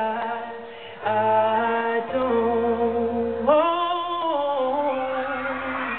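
Live pop ballad: a high voice sings long wordless held notes with vibrato, stepping up and down in pitch, over sustained low accompaniment.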